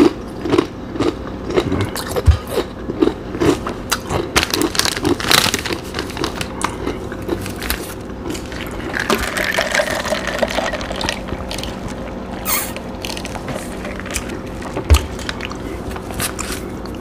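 Close-up chewing of Nacho Cheese Doritos tortilla chips, a steady run of crunchy chews at two or three a second. About nine seconds in, the chip bag crinkles as it is handled.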